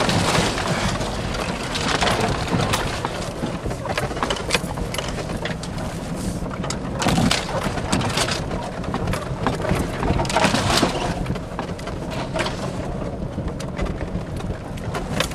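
Jeep driving over a rough off-road trail: a steady rumble of the engine and tyres, broken by repeated sharp knocks, rattles and scrapes as the body bounces and brush drags along its sides, scratching the paint.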